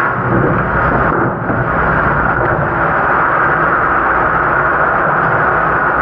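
Commercial dish machine running: a steady, loud rush of its wash pumps and spraying water with a low rumble underneath.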